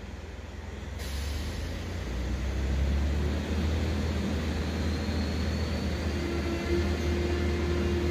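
Diesel engine of an approaching yellow track maintenance machine (RFI B66U), getting louder from about a second in and then holding a steady low drone. A faint rising whistle comes in near the middle, and a steady higher tone joins about six seconds in.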